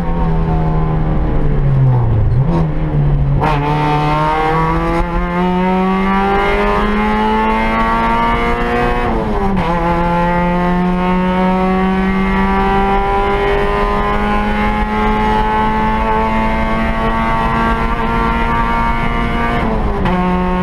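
Peugeot 106 rally car engine heard inside the cabin under hard driving: the revs fall over the first couple of seconds, climb steadily from about three and a half seconds, drop sharply with a gear change near halfway, then rise slowly through the next gear with a short dip near the end.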